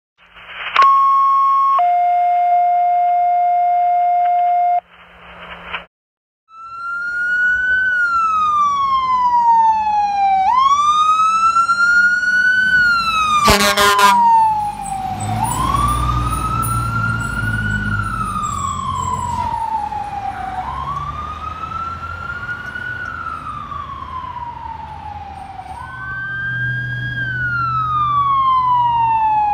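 A two-tone radio dispatch alert sounds first: a higher tone for about a second, then a lower one for about three, with the narrow sound of a radio. Then fire engine and ambulance sirens wail, rising and falling about every five seconds. Near the middle, a short, loud air-horn blast and the deep rumble of the fire engine's diesel come as the fire truck passes.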